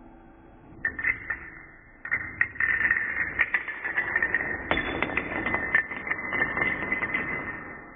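A chain of dominoes toppling on a ceramic tile floor: a few clicks about a second in, then a fast, dense clatter of clicks from about two seconds in that stops near the end.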